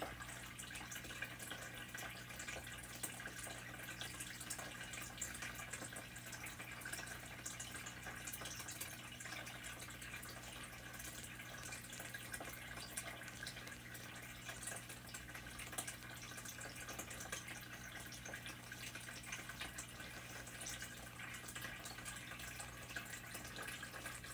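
Faint small splashes and drips of shallow water in a plastic bowl as a painted turtle hatchling paddles, with a steady low hum underneath.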